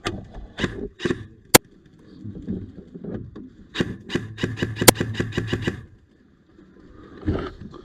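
Airsoft rifle firing: a few single shots with one sharp loud snap about a second and a half in, then a rapid full-auto burst of about seven shots a second lasting nearly two seconds.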